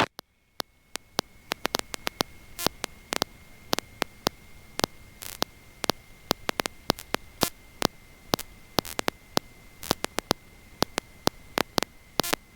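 Crackling static on an aircraft intercom audio feed: irregular sharp clicks and pops over a faint hiss, with a thin steady high whine. The engine itself is not heard.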